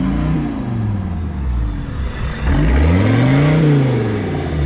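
Mercedes W123 300TD's OM617 five-cylinder turbo diesel, on a modified exhaust, revved twice. Each rev rises and falls in pitch; the first tails off about a second in, and the second, louder rev builds from about two and a half seconds in and drops back near the end.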